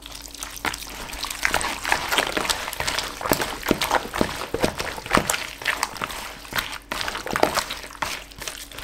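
Raw chicken pieces being squeezed and turned by a gloved hand in a wet yogurt and spice marinade in a plastic bowl: irregular wet squelching and slapping throughout.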